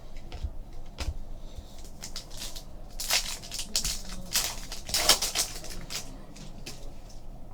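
Plastic wrapper of a trading card pack crinkling as it is handled and opened, with cards being shuffled. The crinkles come in a run of crackly rustles, loudest about halfway through.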